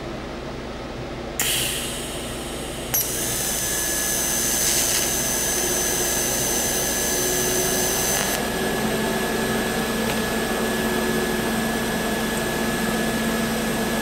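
TIG welding arc on thin steel: the arc strikes with a crackle about a second and a half in, jumps louder about three seconds in, then runs as a steady hissing buzz. Filler rod is being fed to gob extra metal onto the end of the tab before the weld is run, so the end is less likely to burn away.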